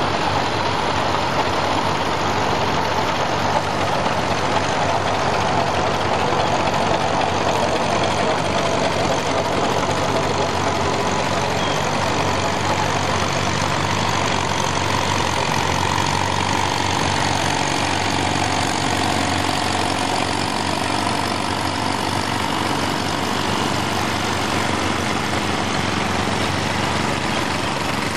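Several antique farm tractors, including two-cylinder John Deeres, and small garden tractors running at low speed as they pass one after another, their engines overlapping in a steady mix.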